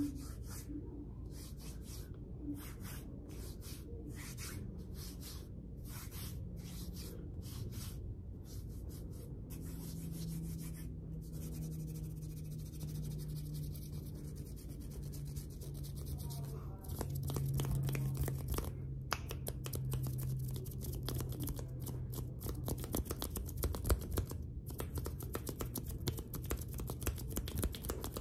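Close-miked hands rubbing, brushing and sliding against each other, palms and fingers together: a dry, crispy rustle dense with tiny clicks and crackles.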